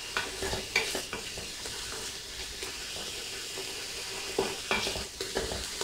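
Garlic and sliced mushrooms sizzling in oil in a metal pot, stirred with a wooden spatula. The spatula scrapes and knocks against the pot bottom in short clusters, near the start and again about three quarters of the way through.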